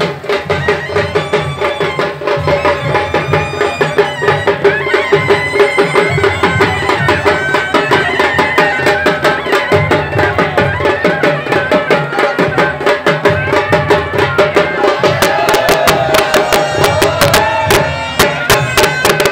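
Traditional procession music: fast, dense drumming with a wind instrument playing a wandering melody over a held tone.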